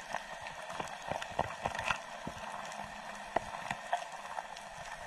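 Underwater sound picked up by a camera in its housing: a steady hiss with scattered, irregular clicks and knocks.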